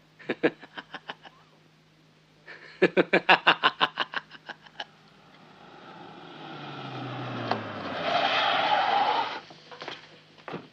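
A man laughing in short, rapid bursts, quietly at first and then louder for a couple of seconds. A rush of noise then swells for several seconds and cuts off abruptly near the end.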